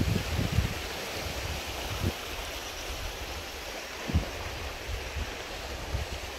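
Steady outdoor rushing hiss of wind and flowing canal water. Wind buffets the microphone, giving a few low thumps every second or two.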